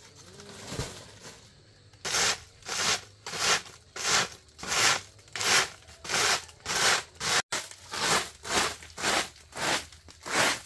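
Repeated scraping strokes in a steady rhythm, about one and a half a second, starting about two seconds in.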